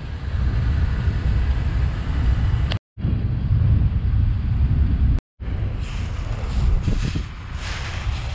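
Wind buffeting an outdoor camera microphone: an uneven low rumble, broken twice by brief silent cuts.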